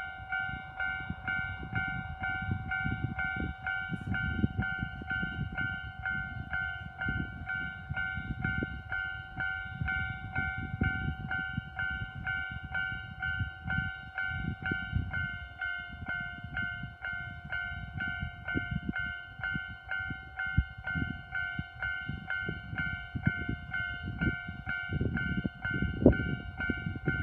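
Railway level-crossing warning bell ringing continuously, a pitched electronic ding repeated at an even, rapid rhythm, over an irregular low rumble.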